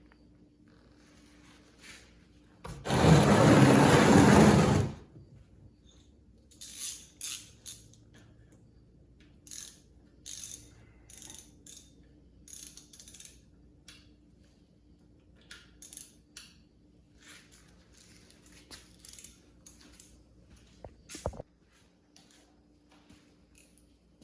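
A loud rush of noise lasting about two seconds, then a long run of short, irregular metal clicks and rattles. The clicks fit a socket ratchet tightening the magnetic drain bolt and tools being handled.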